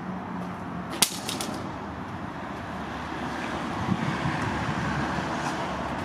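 Leatherman Charge G10 multitool dropped from about 4 metres hits concrete about a second in, corner first, with one sharp clack and a few quick bouncing clicks after it.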